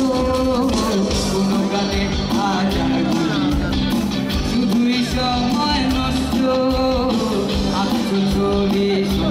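Live rock band playing: a male singer carries a sustained melody over acoustic guitar, electric bass, keyboard and drums with a steady beat.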